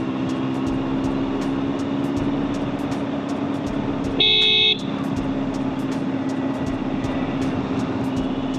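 Honda CBR650F's inline-four engine running steadily while cruising in sixth gear, with wind and road noise. About four seconds in, a vehicle horn sounds once for about half a second and is the loudest thing heard.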